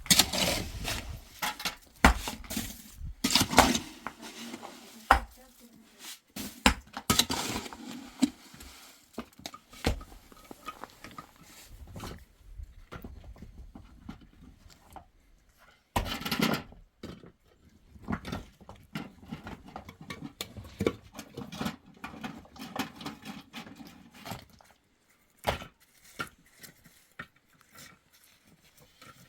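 Irregular knocks and clinks, with intermittent voices.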